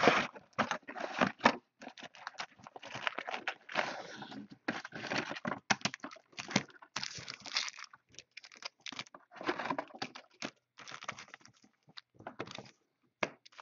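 Clear plastic shrink wrap being torn and crinkled off a trading-card box, in irregular rustling bursts with short pauses.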